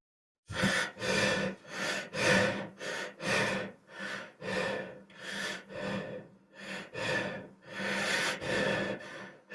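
A person panting hard, out of breath: quick, heavy breaths in and out, about two a second, starting about half a second in.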